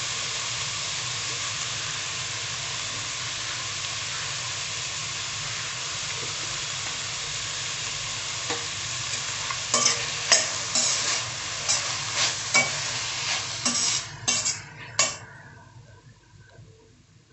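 Onion, carrot and cabbage stir-frying in a hot pan with a steady sizzle. From about ten seconds in, a utensil knocks and scrapes against the pan in quick strokes as the vegetables are stirred, and then the sizzle dies away near the end.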